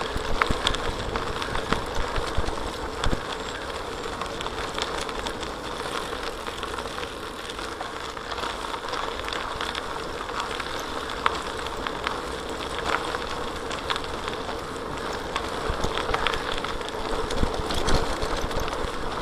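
A bicycle rolling along a gravel path, heard through a handlebar-mounted camera: a steady tyre rumble and rattle of the bike, with a faint steady hum and scattered small clicks from the stones.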